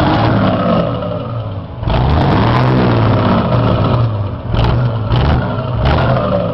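Turbocharged Ford truck diesel engine, its turbo fitted with a comb ("pente") in the intake, revved in several throttle blips: the revs jump sharply, then slide back down between blips.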